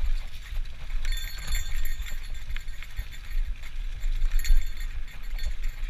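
A Trek bicycle ridden over bumpy trail: the frame and parts rattle and click continually, with a buffeting low wind rumble on the GoPro's microphone.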